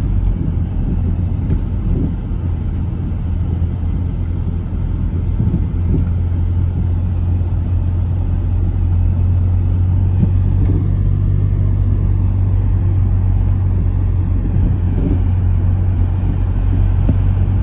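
Steady low rumble of a car driving slowly, heard from inside the cabin: engine and road noise with no sharp events.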